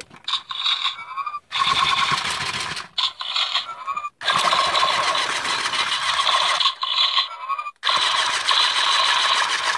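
Electronic blaster sound effects from a Big Blastin' Rocket Raccoon figure's light-up blaster, played through its small speaker: a string of about six harsh, noisy blasts with short gaps between them.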